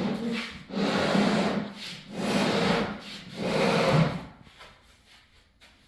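Wooden bed-frame parts rubbing and scraping against each other as a section is worked loose, in three drawn-out strokes of about a second each, stopping about four seconds in.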